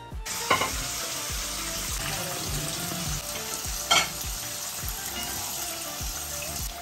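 Chicken-and-potato pieces deep-frying in hot oil in a wok: a steady sizzle that starts suddenly just after the pieces go in. There are two sharp knocks as the slotted spoon strikes the pan, one about half a second in and one about four seconds in.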